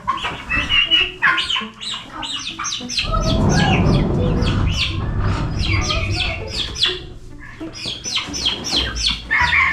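A crowd of penned chickens and turkeys calling: a dense run of rapid, high squawks and chirps. A rustling, scuffling noise lies under the calls from about three to seven seconds in.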